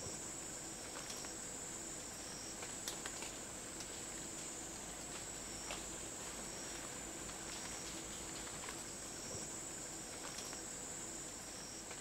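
Night-time rainforest insect chorus, quiet: a steady high-pitched drone of calling insects, with a second, fainter high trill coming and going and a few scattered faint ticks.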